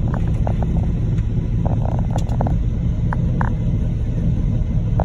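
A truck engine runs with a steady low rumble, with a few faint short clicks and knocks in the first few seconds.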